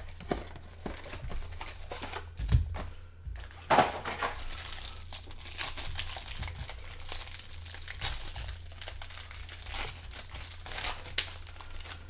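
Crinkling and tearing of trading-card packaging as an NBA Hoops Premium hanger box is opened, a busy run of short crackles, with a soft thump about two and a half seconds in.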